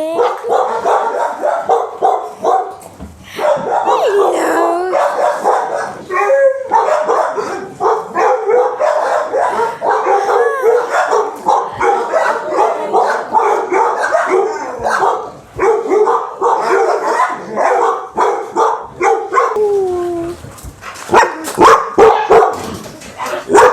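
Many kennelled shelter dogs barking at once in a dense, continuous chorus, with yips among the barks. A few sharper, louder barks come near the end.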